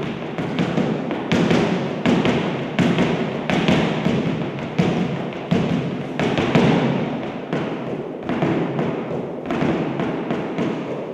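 Flamenco footwork (zapateado): heel and toe strikes of dance shoes on the platform, in quick irregular runs of sharp taps and thuds with a short echo after each.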